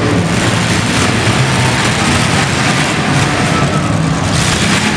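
Engines of several demolition derby cars running and revving together: a loud, steady din of motors.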